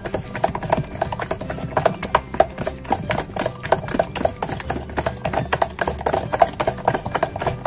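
Stirring a liquid dish detergent and baking soda mix in a plastic bowl: a utensil knocks and scrapes against the bowl's sides in quick, irregular clicks.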